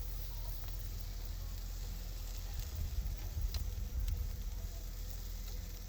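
Steak searing over a wood fire: a steady sizzle and hiss with a few faint crackles over a low rumble.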